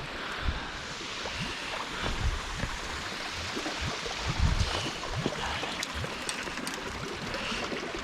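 Steady rush of running water, with a few short low bumps.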